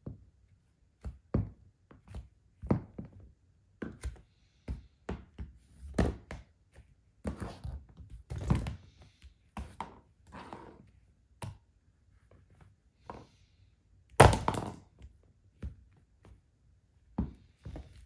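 High-heeled sandals stepping and stomping on a hardwood floor: irregular heel clicks and thunks, about one a second, with softer scuffing and squishing as Play-Doh is pressed flat under the soles. One much louder thunk comes late on.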